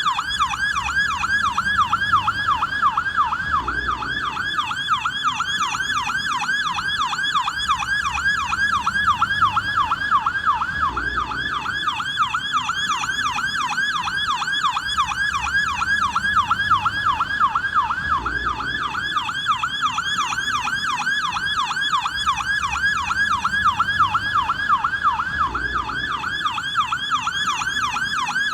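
American police car siren in yelp mode: a fast, unbroken rising-and-falling sweep that repeats several times a second at a steady level.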